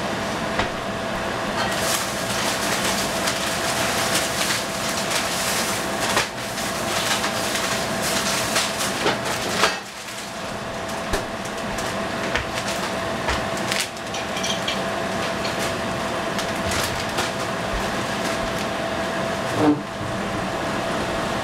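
Spring rolls frying in hot oil: a steady sizzle full of fine crackles, with a steady hum underneath and a few knocks at intervals.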